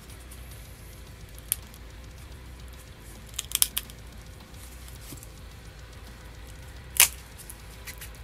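Layers of a phone display panel being bent and peeled apart by hand, giving off sharp cracks and crackles: a faint tick about a second and a half in, a short run of crackles midway, and one sharp crack near the end. Faint background music runs underneath.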